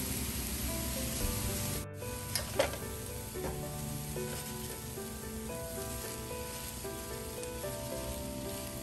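Mushroom fried rice sizzling in a nonstick pan while being stirred and scraped with a silicone spatula, with two sharp scrapes or knocks about two and a half seconds in. Soft background music plays throughout.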